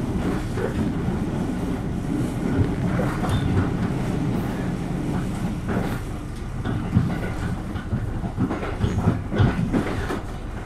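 KiHa 200 series diesel railcar running, heard from inside the passenger cabin: a steady engine drone and low rumble, with wheels clacking over rail joints now and then.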